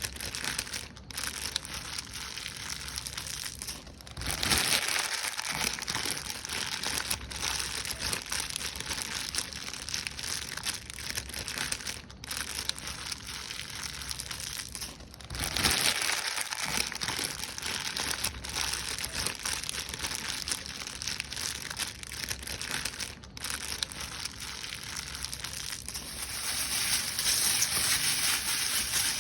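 Paper being crumpled and crushed: a continuous crinkling crackle that swells louder about four seconds in, again about fifteen seconds in, and near the end.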